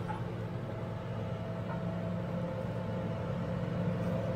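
Caterpillar D7G bulldozer's six-cylinder diesel engine running steadily under load as the dozer pushes a large boulder across dirt.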